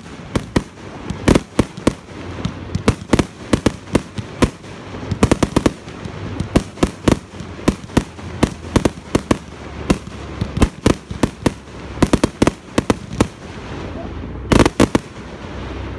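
Fireworks going off in quick succession: aerial shells bursting as a string of sharp bangs, several a second, with a tight cluster of bangs near the end.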